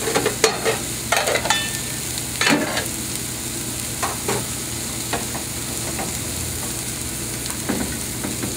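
Floured chicken cutlets pan-frying in oil and butter with tomato, sizzling steadily. Short metal clinks and knocks come every second or so from utensils, a pan lid and a mesh strainer.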